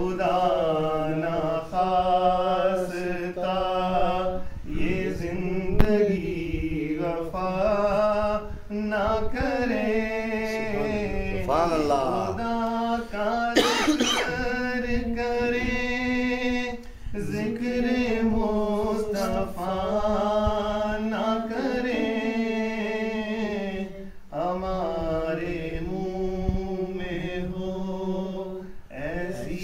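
A man's voice reciting a naat, an Urdu devotional poem in praise of the Prophet, sung unaccompanied in long drawn-out phrases that bend up and down, with brief pauses for breath. A steady low note is held underneath the melody.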